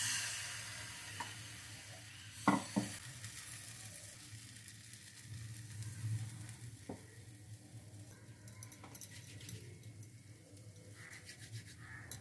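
Thin rice-flour batter sizzling as it is poured into a hot nonstick frying pan and spread with a plastic ladle; the hiss is loudest as the batter lands and fades over a few seconds to a faint, continuing sizzle. Two short knocks come about two and a half seconds in.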